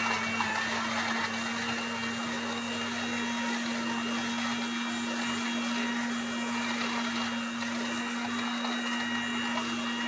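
Small electric kitchen appliance motor running steadily, a constant hum with a whirring rush over it.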